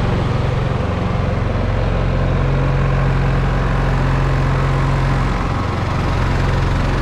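GENMAX GM14000i-HSB tri-fuel inverter generator running steadily after starting in standby mode. Its engine note shifts slightly, stronger about two and a half seconds in, then easing back about five and a half seconds in.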